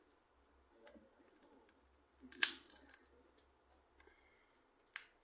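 Light handling noises from small hard parts or tools during a phone repair, with a sharp click about two and a half seconds in and another near the end.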